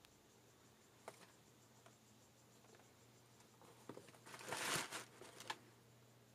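Quiet handling of a canvas sneaker in its shoebox: a few light taps, then about halfway through a brief rustle of tissue paper as the shoe is set down, with a couple of sharp clicks right after. A faint low hum runs underneath.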